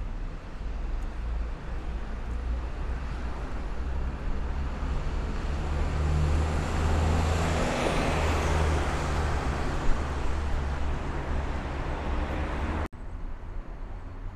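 Street traffic: a motor vehicle passes close by. Its noise builds to a peak about eight seconds in, with a high whine that falls in pitch as it goes by, over a steady low rumble. The sound cuts off abruptly near the end.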